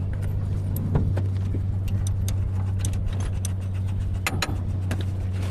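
A vehicle engine idling steadily, with scattered light metallic clicks and clinks throughout and a couple of sharper knocks, about a second in and again after four seconds.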